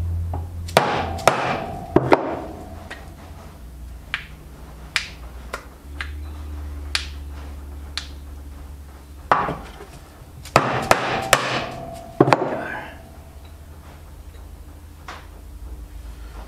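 Plastic soft-faced hammer knocking a new universal joint's needle-roller bearing cups into place in a steel bench vise: a few sharp blows with a short metallic ring, then scattered light metal taps and clicks, and another quick run of hard knocks about ten seconds in.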